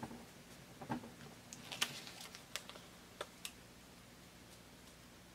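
Faint scattered ticks and paper crinkles of hands peeling the paper backing off small strips of Steam-A-Seam fusible web and pressing them onto fabric.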